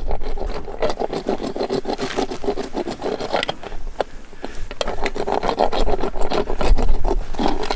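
Hand-held equine dental rasp filing a donkey's teeth, scraping back and forth in repeated strokes: routine floating of the teeth to smooth their sharp edges.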